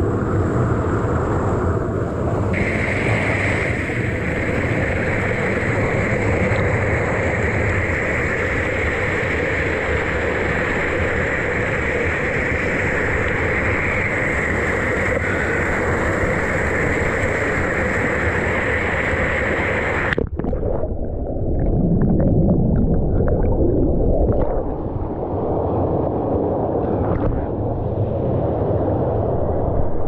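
Steady rushing water. About two-thirds of the way in, it cuts abruptly to a duller rushing sound with scattered knocks.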